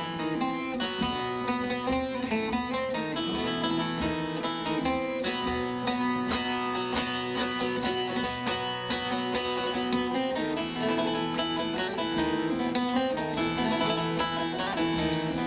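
Instrumental music on a plucked string instrument: a quick, busy run of picked notes over steady low held notes.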